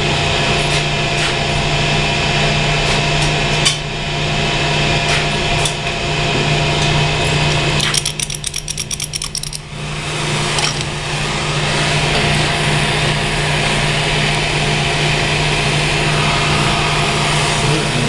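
Steady drone of boiler-room machinery throughout. About eight seconds in, a rapid run of clicks lasting under two seconds as a hand-held gas torch's igniter is sparked and the torch lights for soldering a copper pipe joint. A few single knocks from handling the tools come earlier.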